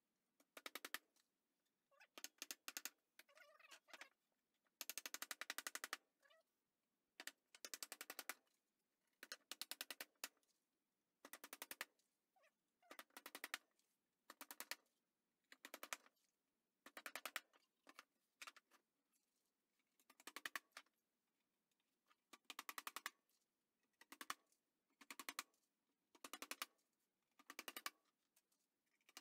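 Claw hammer driving nails into wooden fence-picket boards, with repeated short runs of blows every second or two.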